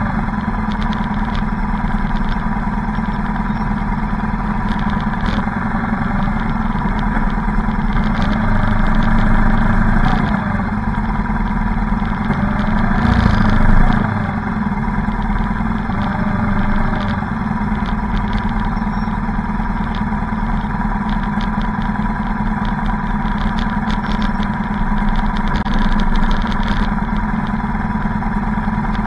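Motorcycle engines running steadily at low parade speed, heard from on board one bike with others riding close around it. The engine noise swells briefly about halfway through.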